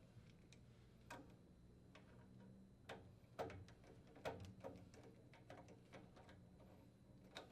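Faint, irregular clicks and light knocks of thermostat wires being handled and reconnected at the furnace's control board terminals, loudest a little past the middle.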